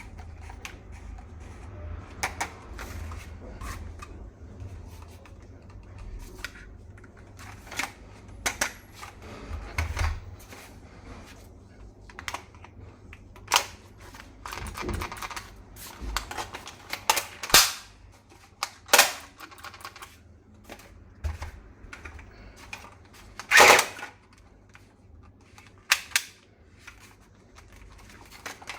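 Irregular sharp plastic clicks and snaps from a toy HK417 rifle being handled and worked, with several louder snaps in the second half.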